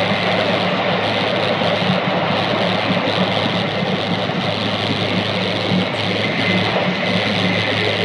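Steady running noise inside a Jōetsu Shinkansen passenger car travelling at speed: an even rushing noise over a constant low hum.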